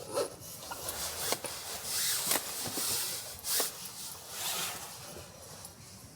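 Irregular rubbing and scraping, with a few sharp clicks in between, as something is handled.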